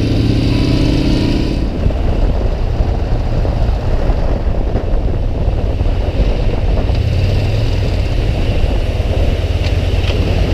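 Yamaha Bolt XV950R's air-cooled V-twin engine running as the motorcycle is ridden, with a steady engine note and a dense rushing noise that mostly covers it after the first couple of seconds.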